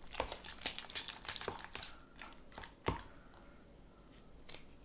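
A spoon stirring cottage cheese in a plastic tub: quick clicks and wet scrapes for about two seconds, one louder knock just before three seconds in, then softer stirring.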